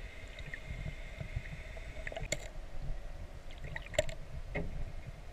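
Muffled underwater sound through a submerged camera housing: a dull, shifting rumble of moving water with a faint steady whine, broken by a few sharp clicks about two and four seconds in.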